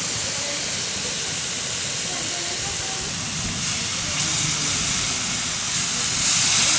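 Masala and dalma sizzling and hissing in a large cooking pot, the hiss growing louder over the last few seconds.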